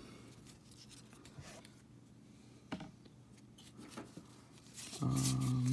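Soft handling of a freshly opened stack of 1991 Score baseball cards: faint rubbing and a couple of light clicks as the cards are slid through by hand. Near the end a man's voice holds a short steady hum.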